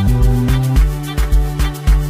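Afrobeat-style music with a driving beat and bass line.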